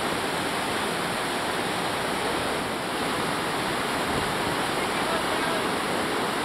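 Whitewater rapids of the Colorado River rushing steadily, an even, unbroken noise of fast-moving water.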